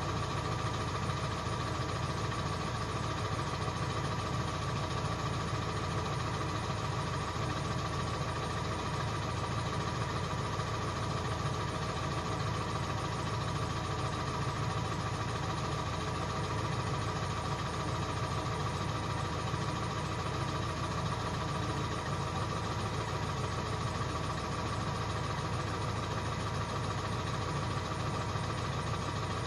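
Ford 7.3 L Power Stroke V8 turbo-diesel idling steadily while warming up after a cold start, with a steady whine held over the low engine sound.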